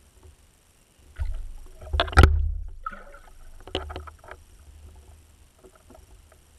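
Muffled knocks and low rumbling heard underwater: a cluster of thumps about a second in, the loudest near two seconds, a few more near four seconds, then fading.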